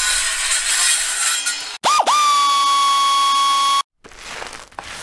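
Intro sound effects: a harsh, raspy noise for about two seconds, then a sharp dip in pitch into a steady high tone that is held for about two seconds and cuts off suddenly, followed by softer rustling bursts.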